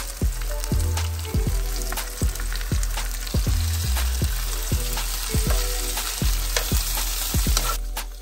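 Sliced bell peppers, onion and oyster mushrooms frying in a hot pan with a steady sizzle, stirred with tongs; the sizzle cuts off shortly before the end. A steady musical beat runs underneath.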